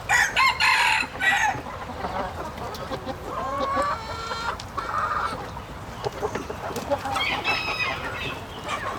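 Chickens calling: hens clucking, with a rooster crowing. The calls come in several loud bursts, the loudest in the first second or so.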